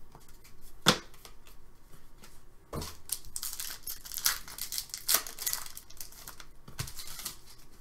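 An Upper Deck SP Authentic hockey card pack's wrapper being torn open and crinkled as the cards are pulled out. It comes after a single sharp tap about a second in.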